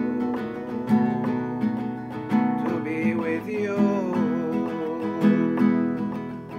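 Acoustic guitar strummed steadily, accompanying a slow devotional song between sung lines, with a voice holding a wavering note about three seconds in.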